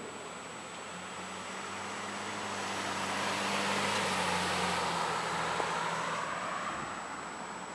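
A road vehicle passes by: engine hum and tyre noise swell, peak near the middle, and fade away, the engine note dropping slightly as it goes past.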